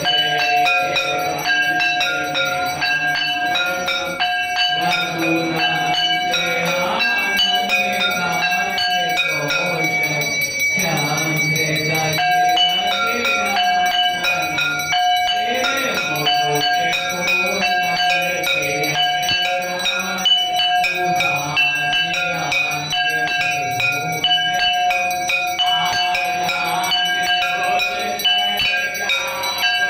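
Hindu temple bells rung over and over without pause for the aarti, their strikes coming about twice a second with a steady ring between. Voices can be heard faintly underneath the bells.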